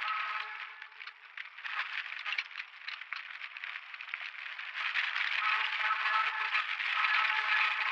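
Downhill mountain bike rolling fast over a rocky dirt trail: the bike rattles and its knobby tyres scrape and crackle over gravel and ruts. A steady buzzing tone is mixed in at the start and again from about five seconds in, and the whole sound gets louder over the second half.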